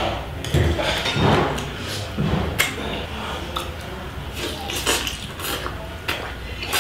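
A person eating lobster meat, with chewing and mouth smacks and a string of short sharp clicks from shell and utensils against plates.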